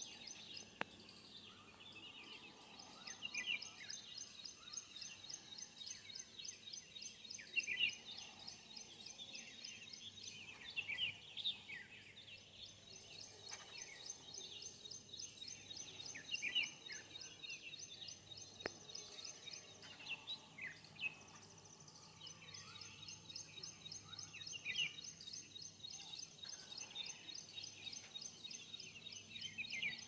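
Jungle babblers giving short calls at irregular intervals. Behind them runs a steady, high, fast-pulsing buzz that stops and starts again twice.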